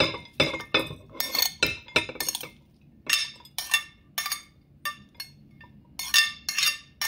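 Metal spoon scraping and clinking against a ceramic bowl as salad is scooped out, a quick run of sharp ringing clinks about three a second with a brief pause about two-thirds of the way through.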